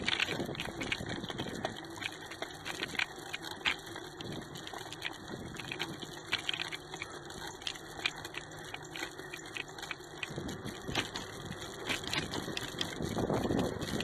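Bicycle in motion, heard through a camera clamped to the bike: steady rolling and wind noise with many irregular small clicks and rattles.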